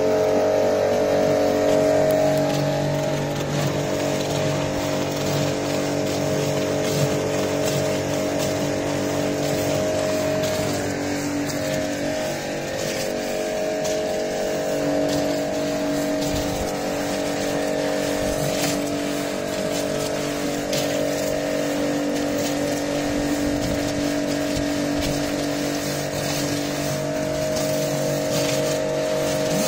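Kärcher K5 Compact electric pressure washer running steadily, its pump hum carrying a few steady tones under the hiss of water jets blasting the driveway through a rotary surface-cleaner attachment. It cuts in suddenly at the start.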